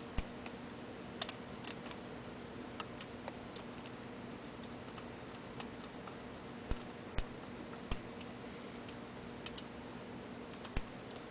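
Lock picks working inside a key-in-knob lock cylinder: sparse, irregular light clicks and ticks, a few of them sharper than the rest, over a faint steady hum.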